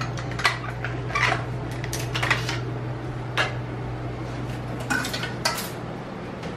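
Hair-clipper guards and clipper blades clicking and clinking as they are handled and set down on a stone counter, about seven separate sharp knocks spread over several seconds, over a steady low hum.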